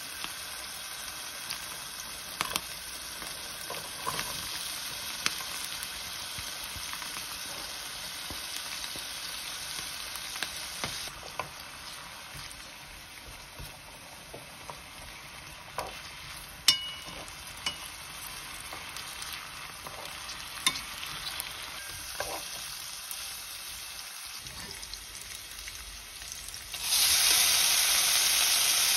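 Shrimp, garlic and bacon sizzling in olive oil in a frying pan, stirred with a wooden spatula that gives occasional sharp taps and clicks against the pan. Near the end the sizzle jumps suddenly much louder as the boiled pasta goes into the hot oil.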